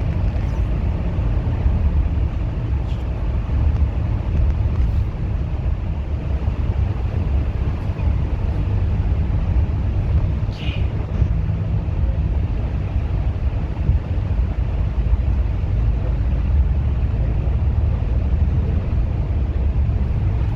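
Steady low rumble of a bus under way: engine and road noise with no pauses. A brief higher-pitched sound stands out about ten seconds in.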